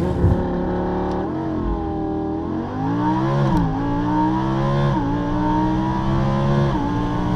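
Lamborghini Huracán's V10 engine held at high revs on launch control. The pitch holds steady, climbs a little, then dips suddenly about three and a half seconds in, with smaller steps later.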